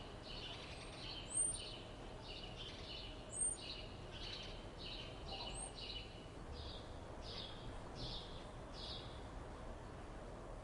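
Morning birdsong: one bird repeats short notes about twice a second, while sharp high chirps from another bird come over it, the loudest about a second and a half and three and a half seconds in, against a steady faint outdoor hiss.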